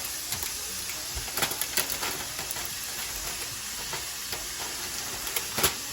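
Foil wrapping crinkling and crackling as it is peeled off a hot pan of baked chicken, over a steady sizzling hiss. A few sharp crackles stand out, about a second and a half in and again near the end.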